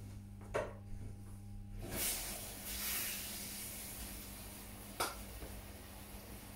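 Haier HWF85BW1 front-loading washing machine starting its cycle. A click comes first; about two seconds in, a low hum stops and water starts to hiss in through the inlet valve, loud at first and then settling to a steady hiss. Another click comes about five seconds in.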